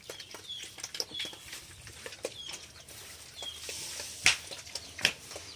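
Pigs feeding in straw bedding: rustling straw and rapid chewing clicks, with four short high bird chirps in the first half and two sharp knocks near the end.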